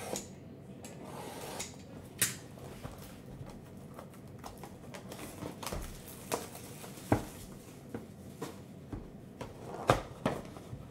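Clear plastic shrink wrap crinkling as it is peeled off a cardboard trading-card box, with scattered taps and knocks from handling the box; a few sharp taps stand out above the rustling.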